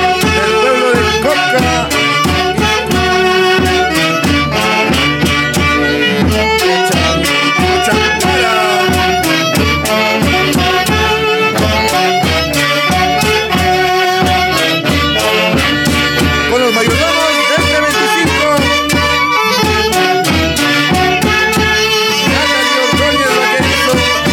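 An Andean folk orchestra playing a huaylía, a Huancayo dance tune, with melody instruments over an even, pulsing bass beat.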